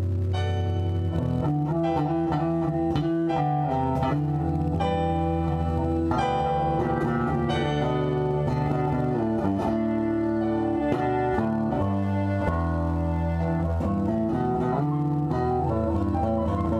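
Two guitars playing an instrumental passage together, strummed chords over steady low notes, with no singing.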